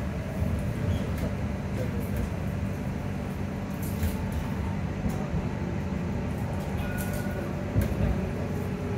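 Edinburgh tram's traction motors and running gear heard from inside the passenger saloon while it moves: a steady low hum and rumble with a few light knocks and rattles.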